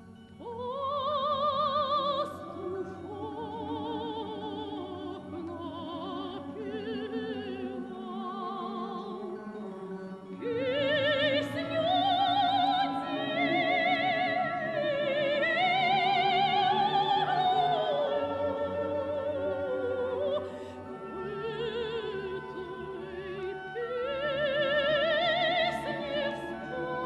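Background music: an operatic singing voice with strong vibrato holding and gliding between long notes over a sustained orchestral accompaniment.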